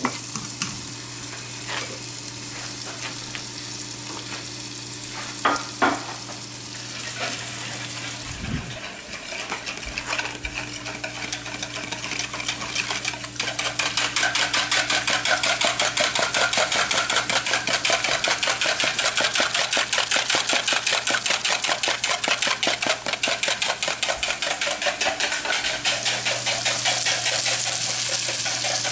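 Red onions and butter sizzling in a frying pan on an electric stove, stirred with a spatula with a few knocks on the pan. The crackling grows louder and denser from about halfway through.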